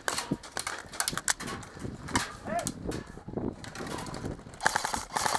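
Airsoft firefight at close range: scattered, irregular clicks and snaps of airsoft guns and gear, with faint distant shouting near the middle and the end.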